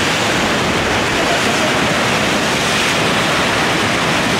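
Whitewater of a river rapid rushing loudly and steadily, a continuous roar of churning water.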